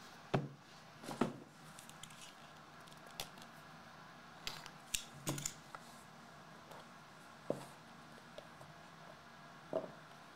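Cardboard trading-card box being handled and opened by hand: scattered light clicks, taps and rustles of card stock, a few every couple of seconds, all faint.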